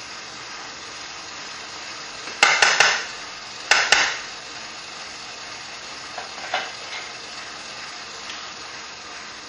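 A case-prep machine's motor running steadily, with two short bursts of metallic clinking about two and a half and four seconds in, and a few lighter clinks near seven seconds. The clinks are a brass rifle case knocking against metal tools.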